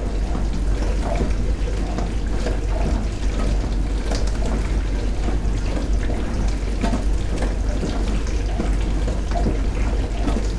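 Dishwasher running: water spraying and splashing inside the tub over a steady low motor hum.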